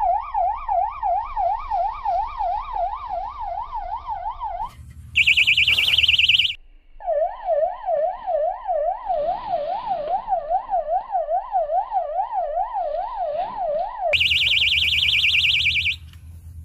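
Electronic fish-bite alarm on a fishing rod sounding: a fast up-and-down wailing siren, about three wails a second, twice broken by a shriller warbling beep. It signals a fish taking the bait.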